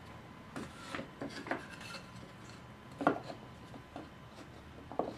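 Spalted pecan and mahogany box panels being handled and set into an MDF jig: a scattering of light wooden knocks and scrapes, the clearest about three seconds in and again near the end.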